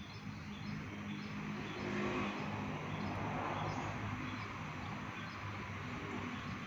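Steady low motor-vehicle engine hum, louder from about two seconds in, with faint high chirps repeating about twice a second.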